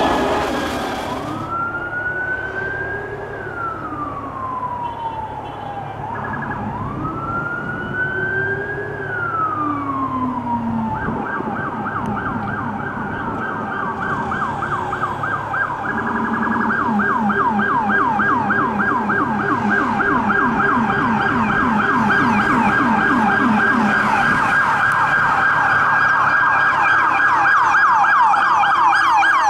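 NYPD Emergency Service Unit truck's electronic siren. It sounds two slow wails, rising and falling, then switches a little over a third of the way in to a fast yelp that runs on. A low rumbler siren tone follows the same pattern beneath it for much of the time.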